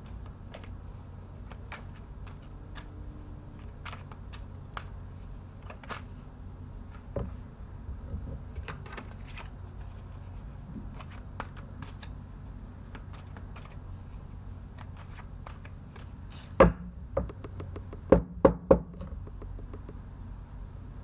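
Tarot cards being shuffled and handled: a run of small light clicks, then a few louder sharp knocks about three-quarters of the way through.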